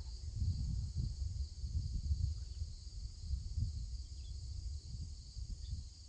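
Steady high-pitched insect chorus running without a break, with an uneven low rumble underneath.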